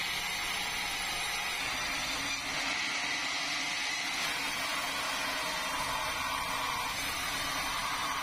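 Band sawmill running, its blade cutting lengthwise through a large red meranti log: a steady sawing noise with the machine's motor running underneath.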